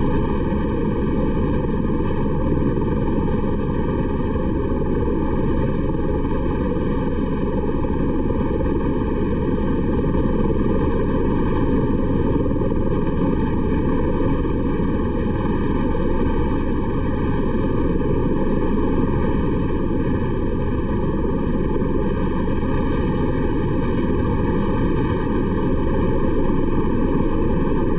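Helicopter running, heard from inside its cabin: a steady low noise of engine and rotors that does not change.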